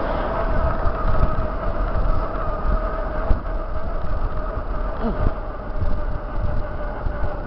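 Wind buffeting the microphone of a camera mounted on a road bike's handlebars, with tyre noise on asphalt and a steady hum, while the bike rides at speed.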